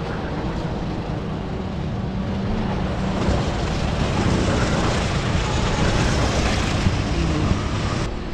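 Go-kart engines running on the track, swelling from about three seconds in as karts pass, mixed with wind buffeting the microphone.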